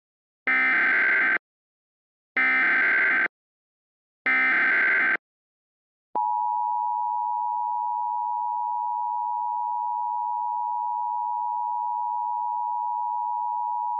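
Emergency Alert System tones: three short bursts of SAME header data, about a second each, then the two-tone attention signal, a steady dual tone that starts about six seconds in and holds for about eight seconds.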